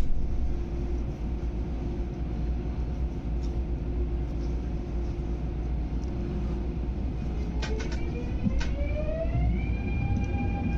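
MTR Airport Express electric train pulling away from the platform, heard from inside the carriage. A steady low hum, a few clicks about eight seconds in, then the traction motors' whine rising in pitch as the train accelerates and levelling off near the end.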